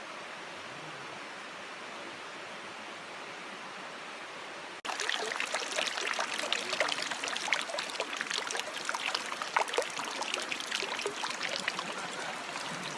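Heavy rain falling: a steady even hiss. About five seconds in it abruptly becomes louder and closer, with many separate drops striking nearby.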